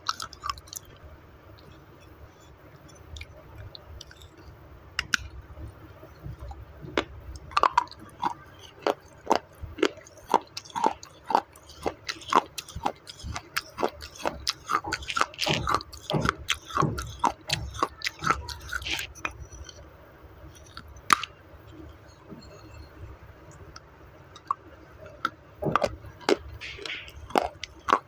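Baked clay roti being bitten and chewed right at a lapel microphone: a run of sharp, gritty crunches. The crunches are sparse at first, come thick and fast in the middle, and pick up again near the end.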